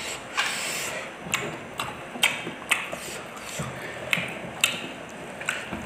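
Close-up eating sounds: chewing with sharp, irregular lip smacks and mouth clicks, and short crunchy smears of fried food being bitten.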